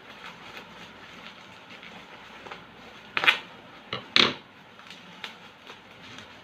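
Packaging being handled while a glass French press coffee maker is unwrapped: soft rustling and small clicks, with two short, louder rustles about three and four seconds in.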